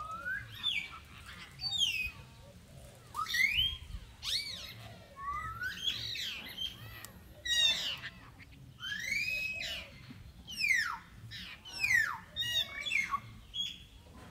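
Repeated high-pitched animal calls, each a quick rising or rising-and-falling squeal, coming about once a second.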